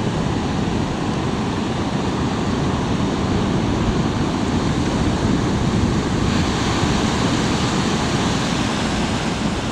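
Ocean surf breaking and washing up a beach in a steady, unbroken rush, with wind rumbling on the microphone.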